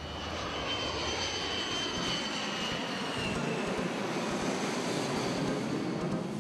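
Jet airliner flying low overhead: a steady rush of engine noise with a high whine that drops slightly in pitch as it passes.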